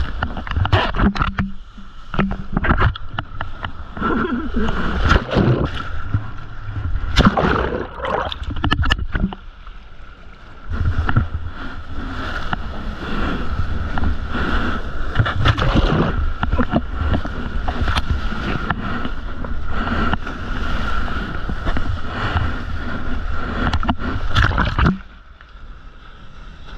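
Seawater splashing and rushing against a mouth-mounted action camera as a surfer paddles and rides through small breaking surf, with wind noise on the microphone and a thin steady high tone underneath. It drops quieter near the end.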